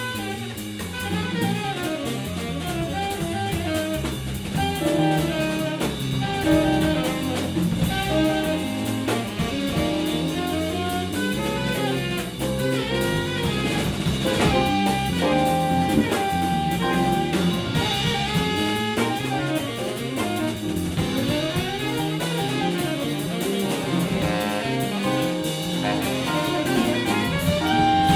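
Jazz music: a band playing at a steady level.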